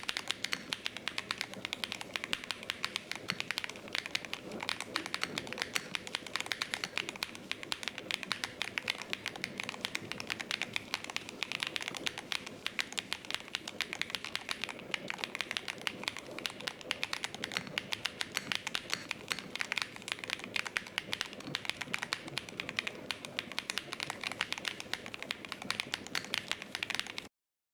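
Fast, continuous typing on a mechanical keyboard fitted with Gateron Smoothie linear switches: a dense stream of key strokes that stops suddenly near the end.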